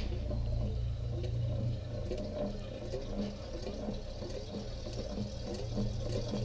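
Oil sloshing and splashing inside the open crankcase of a McDonald Super Diesel stationary engine as the crank is slowly turned over by hand, with irregular small wet gurgles over a steady low hum.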